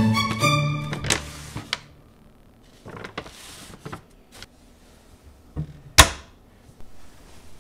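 A painted wooden kitchen cupboard door swung shut, with one sharp knock about six seconds in, preceded by soft rustling of the stored bags. Violin music ends in the first second or so.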